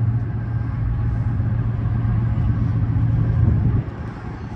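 A steady low engine drone that cuts off suddenly near the end.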